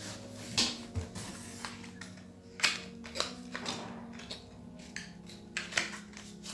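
Product packaging being handled and opened by hand: a string of sharp clicks and short rustles, over soft background music.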